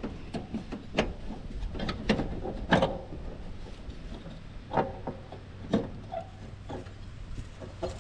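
Irregular clanks and knocks, several scattered over a few seconds, of parts being handled while a lawn mower's belt is fitted around its pulleys.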